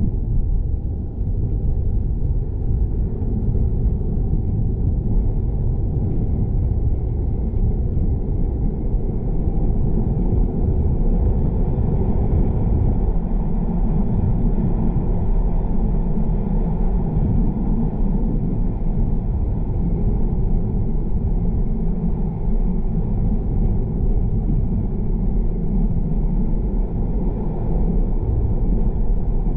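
A car driving along a road: a steady low rumble of engine and tyres.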